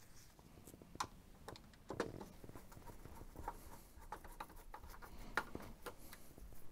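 Faint clicks and scraping of a screw being driven into a printer's plastic case with a magnetic screwdriver, with a few sharper clicks about a second, two seconds and five and a half seconds in.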